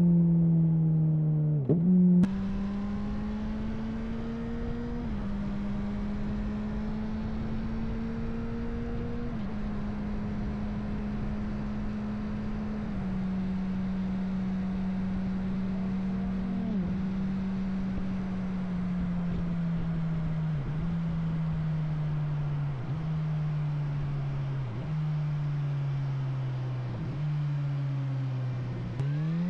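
2009 Suzuki GSR 600's inline-four running through a Yoshimura dual exhaust with the dB killers removed, under way on the road. A few quick revs in the first two seconds, then a steady cruising note that slowly falls in pitch with several brief dips, and a sharp rev just before the end.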